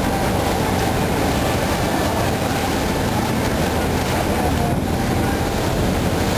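Steady low rumble and hiss aboard a moving river boat: the boat's engine running and water rushing along the hull.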